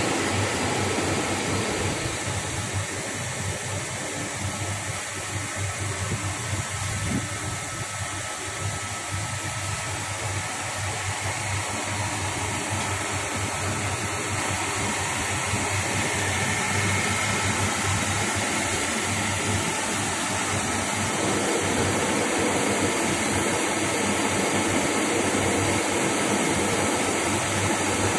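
Workshop machinery running steadily: an even rushing hiss over a low hum, with a couple of faint steady tones. It grows a little fuller about two-thirds of the way through.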